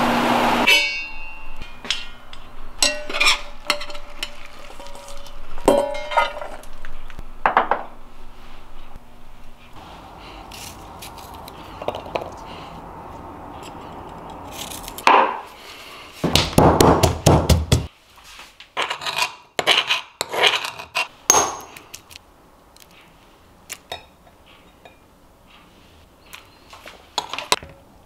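Kitchen preparation sounds: scattered knife clicks and knocks as garlic cloves are trimmed over a stone mortar, then a short run of rapid, heavy pounding in the stone mortar a little past halfway, the loudest part. Lighter metal spoon clinks against a glass bowl follow as the sauce is mixed.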